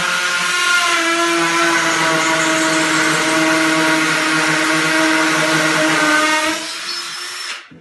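Hammer drill with a 5 mm masonry bit drilling through plaster into brick on hammer action, its motor running steadily at full speed, then easing off and stopping near the end.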